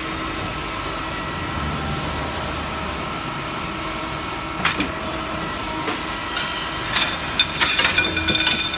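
Pipe cutting machine running with a steady whir and hiss, with faint steady tones. About seven seconds in, a quick run of sharp metallic clicks and knocks starts.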